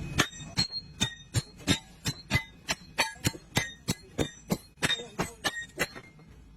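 A run of about nineteen sharp clinks of hard objects striking, about three a second, each with a brief glassy ring. They stop shortly before the end.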